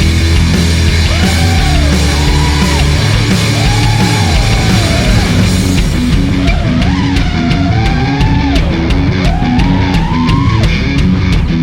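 Loud rock music: a gliding lead melody over heavy low notes, with a steady drum beat coming in about halfway through.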